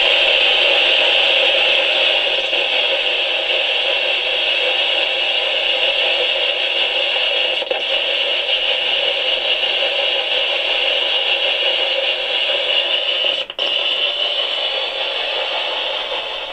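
Spirit box sweeping through radio frequencies, giving a loud, steady hiss of radio static, with one brief dropout about thirteen seconds in.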